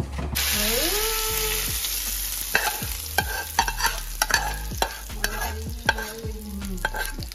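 Tempering in hot oil: the oil bursts into a loud sizzle about a third of a second in as something is dropped into the pan. It keeps frying steadily, with sharp clicks and knocks of a spoon stirring in the pan.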